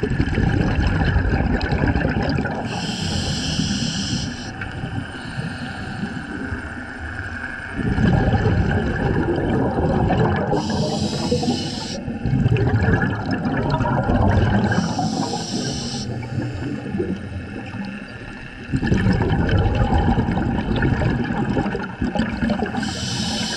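Scuba breathing heard through an underwater camera: a diver's regulator hisses with each inhalation, four times, and the exhaled bubbles rumble loudly in long gurgling stretches between the breaths.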